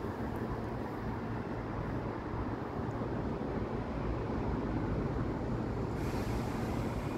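Steady low outdoor rumble, with a brief rise in hiss about six seconds in.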